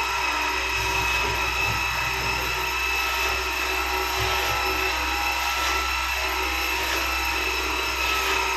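Electric power tool motor running steadily with a constant whine, used on the wooden partition's shelving.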